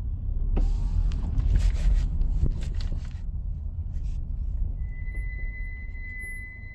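Hyundai Creta creaking and squeaking: a stretch of creaks and sharp clicks over a low rumble in the first half, then a steady high-pitched squeal held for about two and a half seconds.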